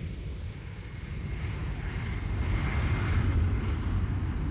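Boeing 747's four jet engines at takeoff power during the takeoff roll, a deep rumble with a rushing hiss above it, growing louder from about a second in.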